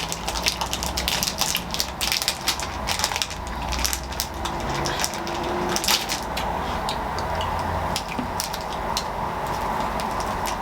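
Crackling and crinkling of sweet wrappers being handled close to the microphone: a quick run of sharp clicks through the first six seconds, then fewer and sparser.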